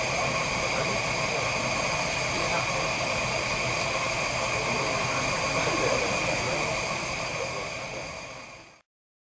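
Steady hiss of steam blowing off from the safety valves of a 15-inch-gauge 4-6-2 steam locomotive standing in steam, with a few fixed whistling tones in it. It fades out near the end.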